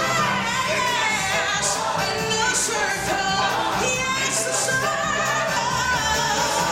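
Live stage-show music played through a PA: a woman sings into a handheld microphone alongside other voices, over dense, steady music.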